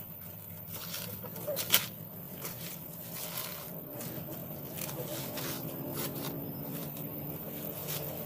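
Rustling and light scraping of leaves and grass underfoot, with scattered soft clicks and one sharp snap about two seconds in, over a low steady hum.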